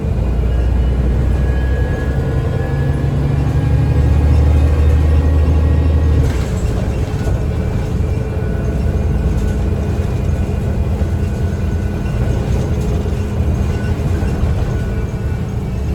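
Inside a 2009 Gillig BRT 40' transit bus with a Voith automatic transmission, the drivetrain runs loudly while the bus is under way. A heavy low drone drops away about six seconds in, leaving a lighter running noise.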